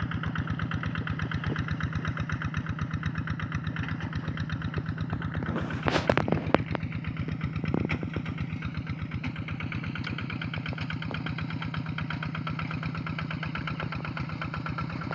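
Hand-tractor engine pulling a plough through a rice paddy, running steadily with a rapid, even chugging. A brief, louder noisy burst sounds about six seconds in, and a smaller one just under two seconds later.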